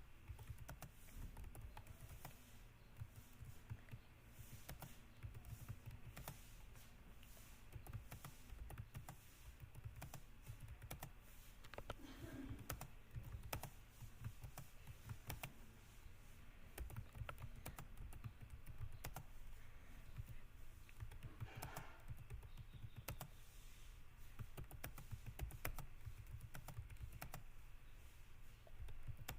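Computer keyboard being typed on: a steady stream of irregular key clicks at an unhurried pace of about 24 words per minute, fairly quiet.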